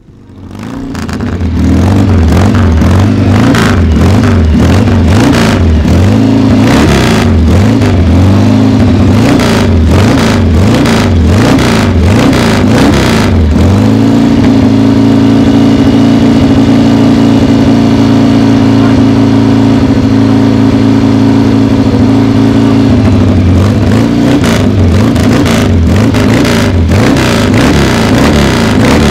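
1966 Kawasaki W1 SS 650's four-stroke parallel-twin engine running. The revs rise and fall unevenly for the first dozen seconds, are held steady and higher for about nine seconds, then drop back.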